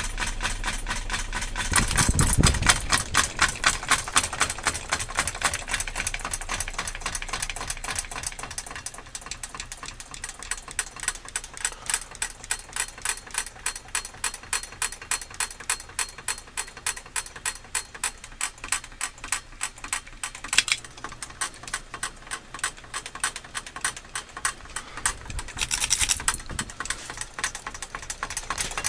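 Wobbly ceiling fan running, its mount and fittings rattling and clicking in a fast, even rhythm of several knocks a second. The rattling is louder for a moment about two seconds in and again near the end.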